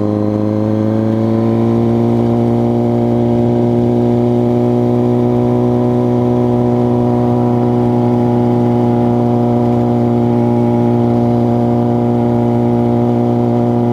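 2006 Suzuki GSX-R600's inline-four engine running at a steady cruise. Its pitch rises a little in the first second or two, then holds level.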